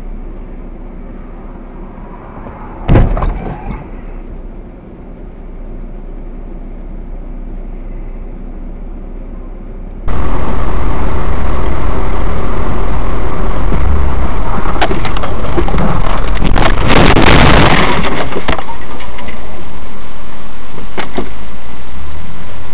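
Car dashcam audio: steady vehicle noise with a sudden loud crash about three seconds in. About ten seconds in it cuts abruptly to a much louder, muffled clip of constant vehicle noise, with a louder rush of noise a few seconds before the end.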